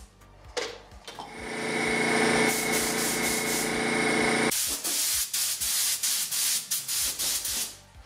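Air-fed gravity-feed paint spray gun spraying a car roof panel: a loud steady hiss with a whistling tone, then, after a sudden break, a high hiss that comes in quick pulses.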